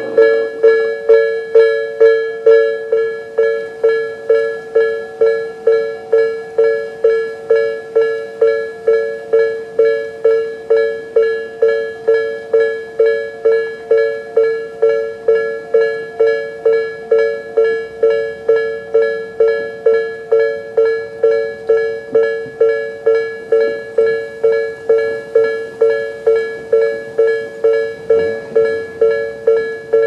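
Japanese level-crossing alarm sounder, the electronic bell tone of the 'Tobu sound B' type, ringing a steady stream of evenly spaced dings, a little under two a second, while the crossing's warning is active.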